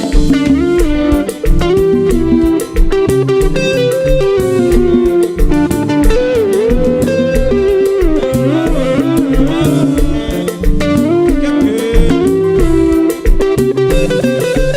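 Konpa band playing an instrumental passage: an electric guitar lead with sliding, bending notes over bass and a steady drum beat.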